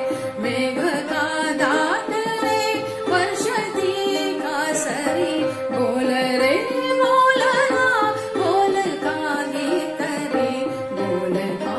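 Woman singing a Marathi bhavgeet set in raga Shivaranjani, with gliding, ornamented melody lines, over instrumental accompaniment that holds a steady drone note.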